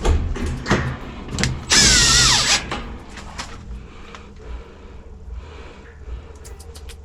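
Cordless drill running in short bursts, driving screws into the washer's back panel. The longest and loudest burst comes about two seconds in, with a wavering whine.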